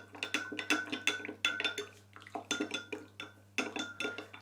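A spoon stirring in a cup, clinking against the sides about three to four times a second with a short ring after each clink, with a brief pause about two seconds in. Brown sugar is dissolving in hot coriander water.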